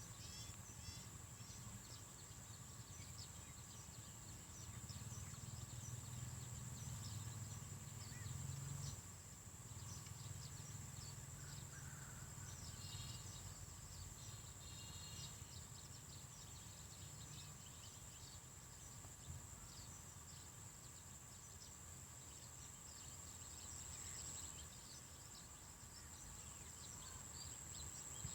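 Faint outdoor nature ambience: insects droning steadily at a high pitch, with scattered short bird or insect chirps over a low rumble.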